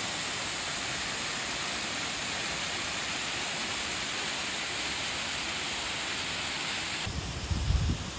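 Steady, even rushing of falling water. Near the end it cuts to a quieter background with a few low thumps.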